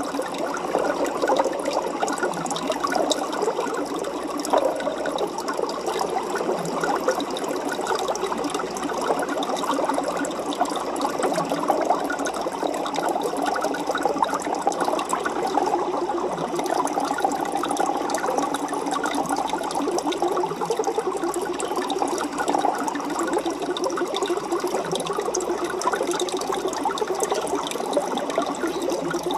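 Aquarium water bubbling and trickling steadily, a dense crackle of many small bubbles that never lets up.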